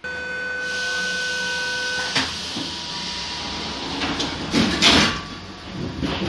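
Door-closing warning on a Z5300 commuter electric train: a steady beeping tone for about two seconds, then the carriage's sliding doors close with a hiss and a clunk, shutting with a loud bang about five seconds in.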